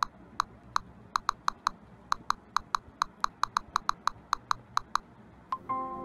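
Smartphone keyboard tap clicks as a message is typed: about twenty short, crisp clicks in an uneven typing rhythm. A single softer blip follows near the end, and soft ambient music begins.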